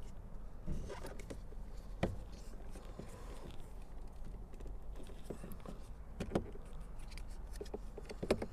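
Scattered light clicks and taps of plastic parts being handled as the wiring plug and replacement door mirror switch are fitted back together, over a steady low hum.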